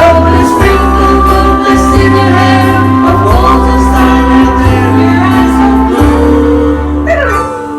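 Loud pop music with singing over a pulsing bass line, dropping away near the end.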